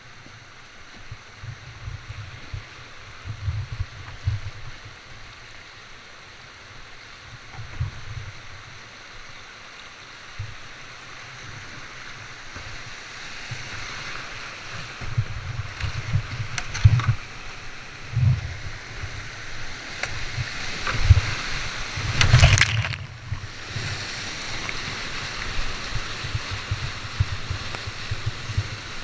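Rushing whitewater that grows louder about halfway through, with repeated low thumps on the microphone and one loud sharp thump about two-thirds of the way in.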